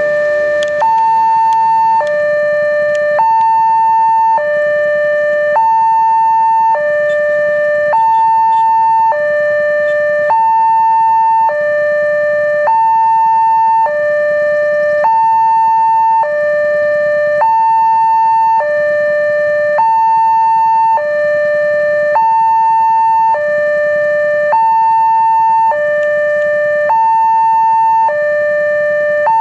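Indonesian railway level-crossing warning alarm: a loud electronic two-tone signal switching steadily between a higher and a lower tone about once a second. It means a train is approaching and the crossing is closed.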